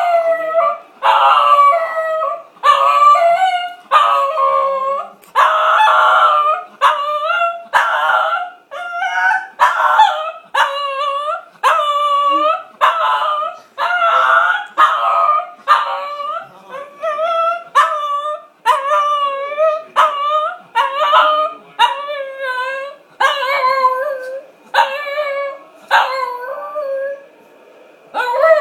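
Shih Tzu howling in a long run of short, wavering, pitched calls, roughly one a second: a dog howling because it wants a walk.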